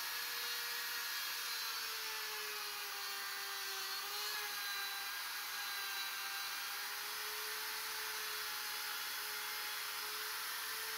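Electric plunge router with a straight bit running at high speed, cutting a hinge mortise into a wooden door jamb. A steady high whine over a hiss, dipping slightly in pitch about four seconds in.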